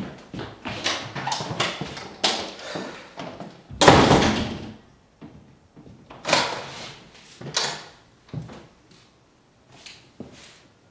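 A door slamming shut about four seconds in, the loudest sound, dying away over about a second, among lighter knocks and thuds that include footsteps on a wooden floor.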